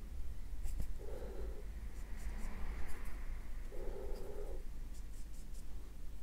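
A paintbrush rubbing and scratching across paper as a thinned black tempera wash is laid on: a few soft strokes and faint scratches over a steady low hum.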